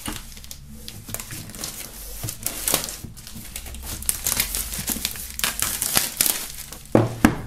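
Clear plastic shrink-wrap film being peeled and pulled off a cardboard box, crinkling and crackling irregularly, with a louder knock about seven seconds in.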